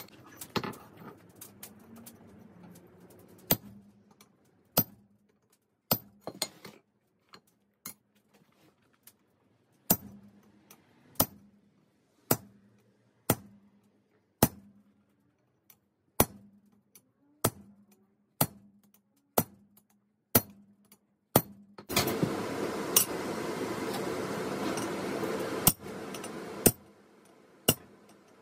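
Hammer striking 5160 spring steel on an anvil during forging: sharp ringing blows, roughly one a second, with a steady low hum beneath. Near the end a loud rushing noise lasts about four seconds, and the strikes continue through it.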